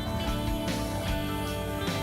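Background music with guitar, steady and unbroken.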